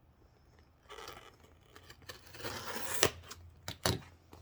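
A small blade slicing through packing tape on a cardboard box: a scraping, tearing hiss that builds up, with two sharp clicks in the second half.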